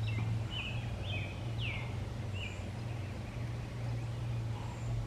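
A bird chirping, several short falling calls in the first couple of seconds, over a steady low hum.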